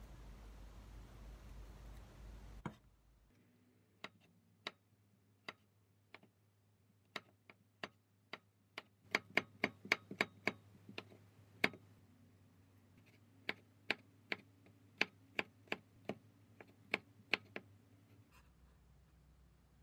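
Knife slicing cucumber into thin strips on a wooden cutting board: a series of sharp, separate taps of the blade on the board, irregularly spaced, with a quick run of them about halfway through, stopping shortly before the end. A faint steady hiss at the start cuts off after about three seconds.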